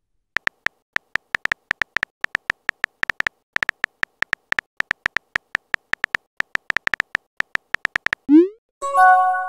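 Texting-story app's simulated keyboard clicking rapidly, about six short ticks a second, as a text message is typed out. Near the end a short rising whoosh and a brief chime sound as the message is sent.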